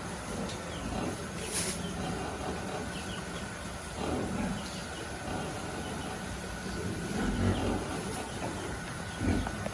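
Pigs grunting now and then, several short low grunts over a steady background hiss.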